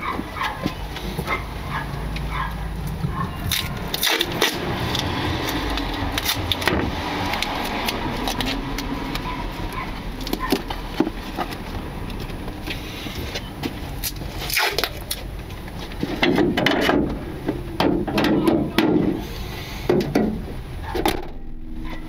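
Low rumble with scattered knocks and clicks from the front end of a 2018 Nissan Leaf, picked up by a lapel mic taped to a member under the bonnet. A run of louder thuds comes about 16 to 20 seconds in.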